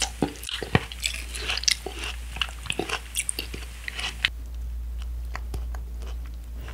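Close chewing of a mouthful of watermelon steak: a quick run of sharp clicks and crunches for about four seconds, then quieter.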